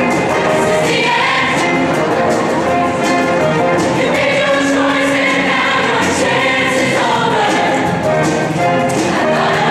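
Show choir singing in harmony over instrumental backing with a steady beat.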